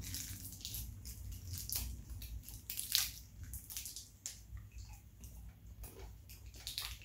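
Small candy wrappers crinkling as they are unwrapped by hand, a run of short, irregular crackles, the sharpest about three seconds in.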